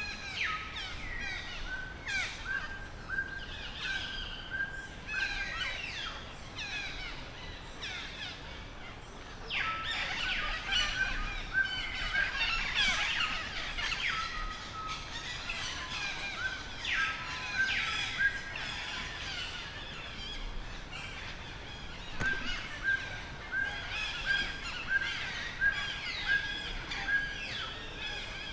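Several birds calling and chirping at once, with quick runs of repeated short notes and many brief sweeping chirps.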